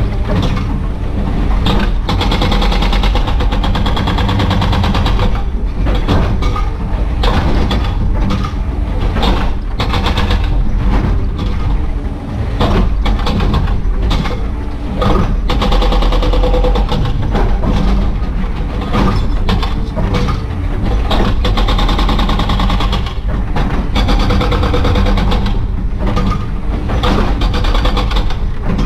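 Excavator-mounted hydraulic breaker hammering concrete and rock in rapid blows over the excavator's diesel engine, heard from inside the operator's cab, with a couple of short pauses in the hammering.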